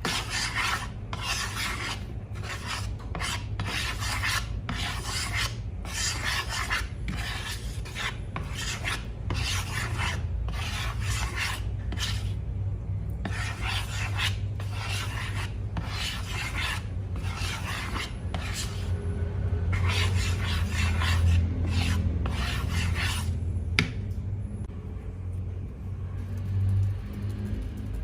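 Repeated rasping, scraping strokes, about two a second with short pauses, like a tool scraping slime around a bowl while mixing. The strokes stop near the end with a single click, over a steady low hum.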